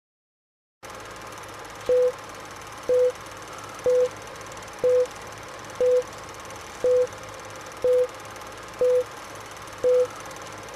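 Film-leader countdown sound effect: a short beep once a second, nine in all, each with a click at its start. Under the beeps runs a steady old-film hiss with a faint low hum, and a single higher beep sounds right at the end.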